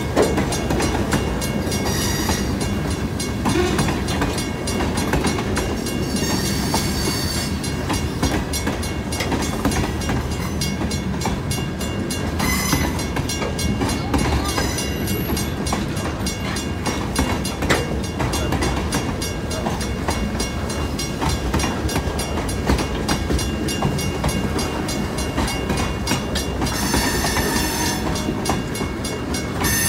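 Freight train of boxcars rolling past close by: a steady rumble of steel wheels on rail with clacking over the joints, and brief high squeals a few times.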